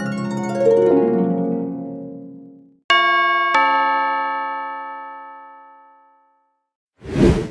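Harp-like plucked notes run downward and fade out. Then a bright chime chord is struck twice, half a second apart, and rings out slowly. Near the end comes a short burst of noise.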